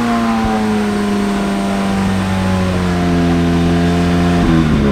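A car engine revved up and held at high revs, its pitch slowly sagging, then dropping away near the end.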